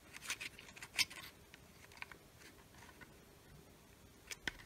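Faint, scattered clicks and rubbing from fingertips handling a ribbon-cable connector on a circuit board in a plastic meter housing, as the crooked connector is pressed and reseated. The clearest click comes about a second in, with a couple more near the end.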